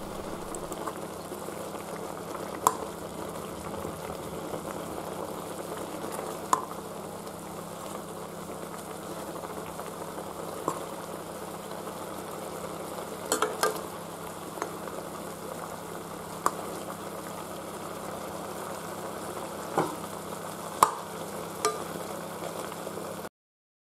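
Chicken pieces in a yogurt sauce sizzling and bubbling steadily in a metal kadhai, while a spatula stirs them and clicks against the pan several times. The sound cuts off abruptly just before the end.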